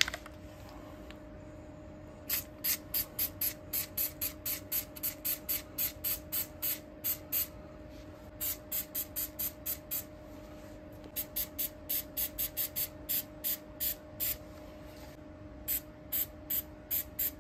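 Aerosol can of Flex Seal liquid rubber spraying in quick short bursts, about two or three hisses a second in runs with brief pauses, over a faint steady hum.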